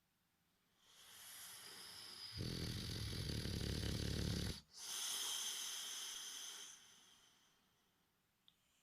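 Boxer dog, a short-nosed breed, snoring in its sleep: one long breath with a loud low rattling snore for about two seconds, a brief break, then a hissing breath that fades away.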